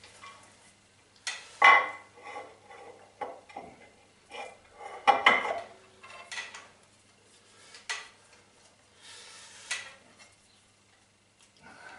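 Steel dividing-head mounting plate being handled and fitted against a milling machine's vertical table. It gives a string of irregular metal clanks, knocks and scrapes as it is seated, the loudest about two seconds in and about five seconds in.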